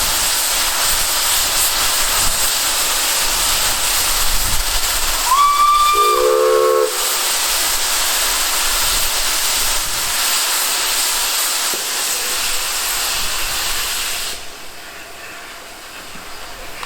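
Steam locomotive blowing off steam with a loud, steady hiss. About five seconds in there is a short whistle blast, a high note over a lower chord, lasting about a second and a half. The hiss drops away sharply about fourteen seconds in.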